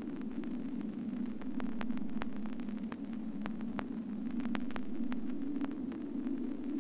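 Steady low droning hum with faint clicks and crackles scattered irregularly through it, an ambient drone laid over the film.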